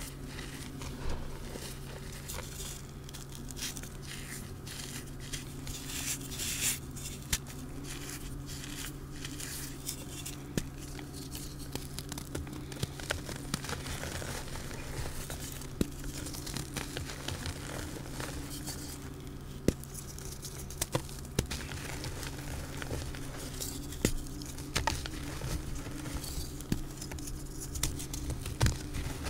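Hands squeezing and crumbling soft reformed blocks of pasted gym chalk with glitter, pressing them into loose chalk powder: crunching and crackling with scattered sharp crackles, over a steady low hum.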